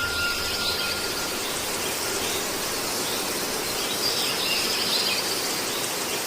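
Steady outdoor noise, an even hiss, with faint bird chirps here and there.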